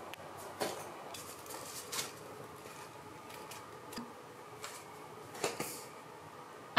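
Quiet room tone with a few soft, scattered clicks and taps.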